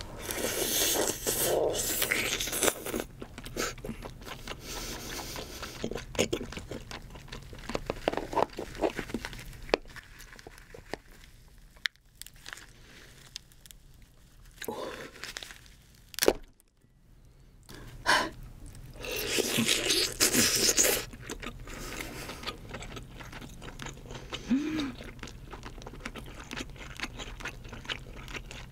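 Boiled king crab being eaten close to the microphone: shell scraping and crackling as meat is pulled from the cracked legs and claw, with chewing and biting of the soft meat. There are louder, longer stretches of scraping and chewing a second or two in and again about two-thirds through, and a sharp shell click just before.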